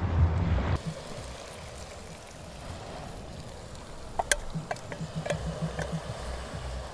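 Wind buffeting the microphone for a moment, cut off abruptly, then a soft trickle of liquid going into the cooking pot. A few sharp clinks land about four to six seconds in.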